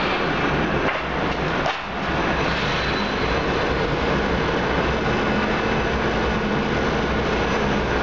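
Steady machine noise with a low hum from a running continuous charcoal carbonization furnace. It dips briefly at a cut about two seconds in.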